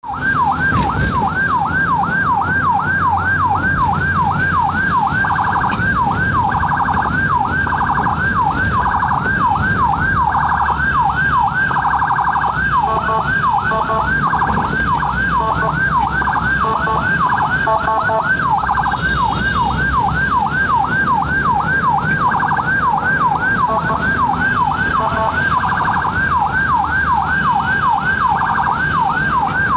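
Ambulance siren in rapid yelp, sweeping up and down about three times a second without a break, with a few short steady-toned blasts mixed in about halfway through, over vehicle engine and road noise.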